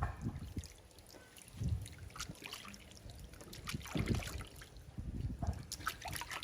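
Bath water splashing and sloshing in an irregular way as a baby monkey is bathed, with scattered small splashes and drips.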